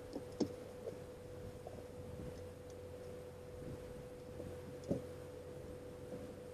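A steady, single-pitched hum runs throughout, with a few light knocks, the clearest about half a second in and another near five seconds in.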